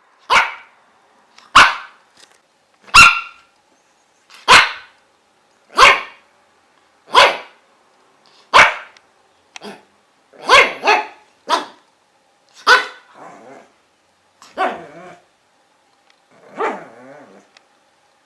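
A dog barking in single sharp barks, evenly spaced about a second and a half apart at first, then more irregular, with a quick pair and some weaker barks. Near the end comes one longer, rougher bark.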